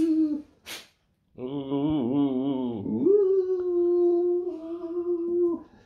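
Alaskan malamute puppy "talking": a wavering, moaning vocalization that rises and falls, followed by one long, steady held note that stops shortly before the end.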